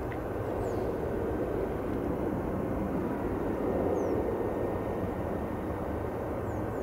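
Boeing 717's two Rolls-Royce BR715 turbofan engines running as the airliner rolls along the runway after landing, a steady jet noise that swells slightly about four seconds in.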